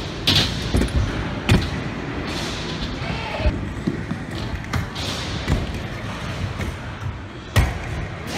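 Freestyle scooter riding on the wooden ramps of an indoor skatepark: a steady rumble of the small wheels rolling, broken about once a second by sharp clacks and thuds of the deck and wheels striking the ramp. The loudest knock comes near the end.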